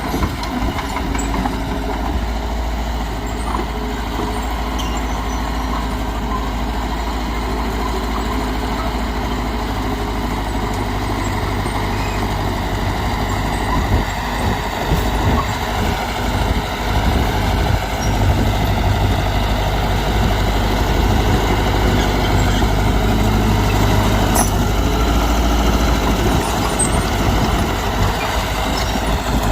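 Heavy diesel earthmoving machinery running steadily, getting louder and working harder from about a third of the way in until near the end.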